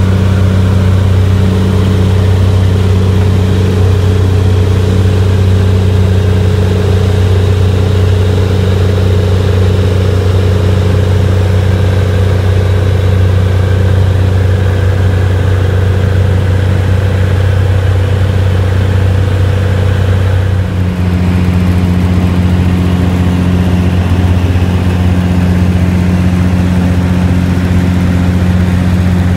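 Jabiru J170 light aircraft's four-cylinder engine and propeller droning steadily in cruise, heard from inside the cockpit. The drone shifts slightly in tone about two-thirds of the way through.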